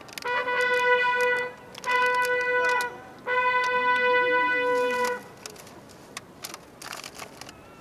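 A trumpet call played as honors to a reviewing officer, ending on three long held notes of the same pitch. Sharp clicks and clacks follow near the end.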